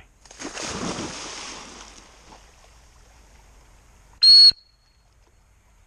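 A Labrador retriever splashes into a pond and swims off. About four seconds in comes a single short, loud blast on a dog-training whistle, the stop whistle that halts the swimming dog on a single-T drill so it can take a cast.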